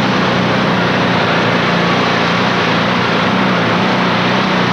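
Pulling tractor's diesel engine running at full power as it drags a weight-transfer sledge, a loud, steady, heavy note that wavers slightly in pitch under load.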